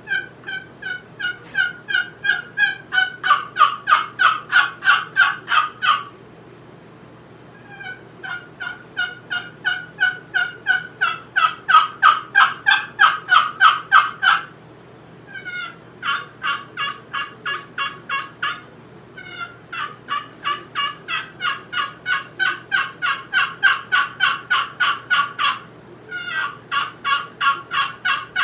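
Walnut-and-cedar wooden box call played by hand, sending out long runs of turkey hen yelps at about four notes a second. Each note breaks from a higher to a lower pitch. Five runs play with short pauses between them, and the notes grow louder as each run goes on.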